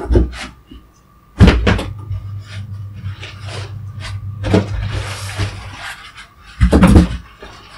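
Packing being handled: polystyrene foam blocks and plastic wrapping pulled from a cardboard box, with rustling and crinkling and several knocks as pieces are moved and set down, loudest about a second and a half in and again near the end.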